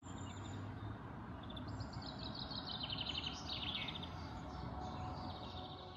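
Small birds singing outdoors: a few quick trilled phrases of high, rapidly repeated notes, one falling in pitch, over a steady low outdoor background hum.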